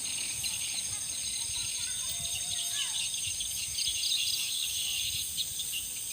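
Outdoor insect chorus, crickets and similar insects shrilling steadily in high tones with busy chirping underneath, over a low background rumble.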